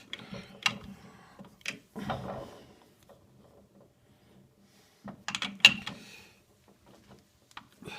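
A metal lathe's chuck being turned over by hand while a part is dialed in: scattered clicks, knocks and gear rattles, with a louder burst of metal clatter about five seconds in.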